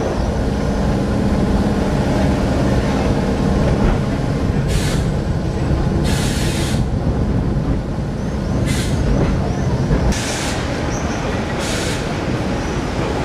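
Sóller's vintage electric tram running along its street track, heard on board: a steady low rumble and hum. Five short hisses break through it, one of them a little under a second long.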